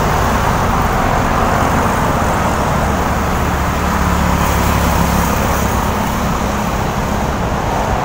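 Steady roadside traffic noise: cars and engines running past on a busy road, with a continuous low engine hum.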